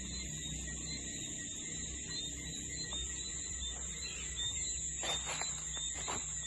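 Night insect chorus: a steady, high-pitched trill of crickets or similar insects, with fainter steady chirping lower down. Around five and six seconds in come a few short rustling knocks.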